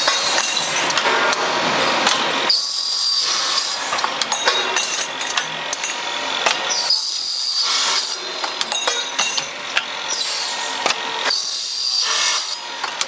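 A saw cutting: a steady, loud rasping noise that turns higher and thinner for about a second three times, roughly every four and a half seconds.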